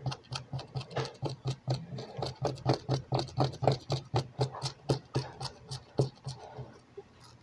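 Fingernails picking and scratching at heat transfer vinyl on a T-shirt, peeling it off the fabric in a fast, irregular run of small clicks and crackles, the vinyl's glue loosened by VLR solvent.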